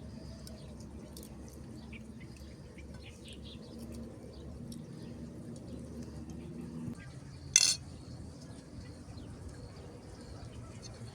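Dishes and cutlery clinking lightly over a steady outdoor background, with faint bird calls. About seven and a half seconds in comes one short, louder sharp clink.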